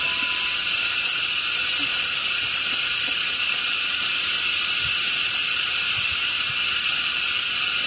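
Steady, high-pitched drone of forest insects, unchanging throughout.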